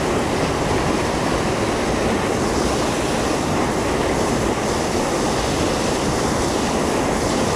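Rushing water of a fast-moving river current, a steady, even wash of noise.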